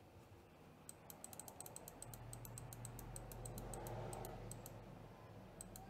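Computer keyboard keys clicked rapidly and repeatedly, several clicks a second, stepping the CNC plasma table's jog speed down in Mach3. A faint low hum runs underneath from about two seconds in until near the end, and two last clicks come near the end.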